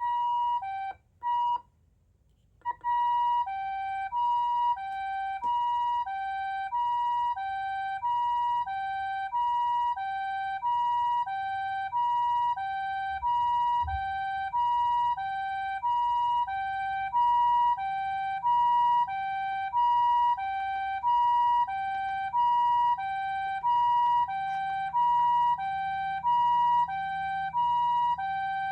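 Patlite SAP-500FBVZ siren amplifier sounding the Japanese ambulance two-tone siren, alternating a higher and a lower tone, each a little over half a second. Two short blips come first, then a brief gap, and the high–low pattern runs steadily from about three seconds in. A single low thump is heard near the middle.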